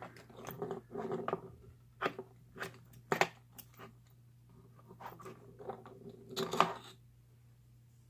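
Small metal tools and lock parts clicking and clattering as they are handled and picked through on a workbench. There is a sharp click about three seconds in and a louder rattle near the end.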